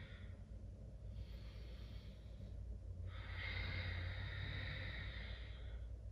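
A woman breathing audibly: a short faint breath about a second in, then a longer, stronger breath from about three seconds in, over a low steady hum.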